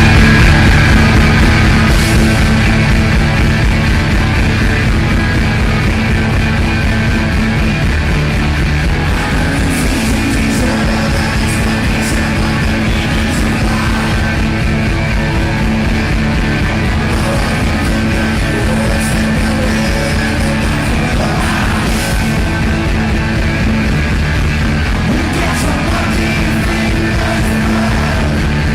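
Full-band rock music with a singing voice, loud and continuous, with drums and cymbal hits.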